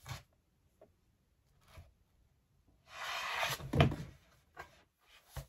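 Hands handling a laptop on a wooden desk: a few light clicks and knocks, then a scrape of about a second three seconds in that ends in a loud thump, and a couple of lighter knocks after it.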